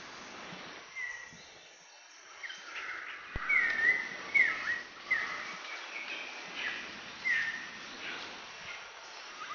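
Birds chirping over a steady outdoor hiss: a run of short, falling whistled notes about a second apart, loudest in the middle.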